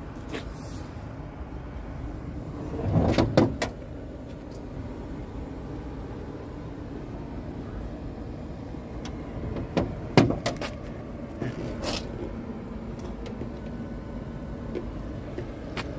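Knocks and clicks from the Scania truck's cab door being handled and opened, loudest about three seconds in and again about ten seconds in, over a steady low hum.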